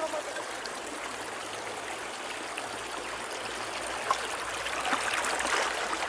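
Shallow river water running steadily, with small splashes and trickles that grow louder and busier over the last couple of seconds.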